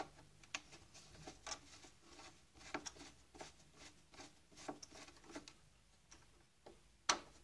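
Faint, irregular clicks and light scrapes of a hand tool working on bolts in the grinder-unit base of a Saeco Royal coffee machine, with one sharper click near the end.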